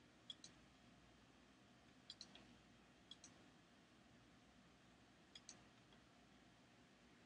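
Computer mouse button clicks: four short pairs of sharp clicks a second or two apart, over faint room hiss.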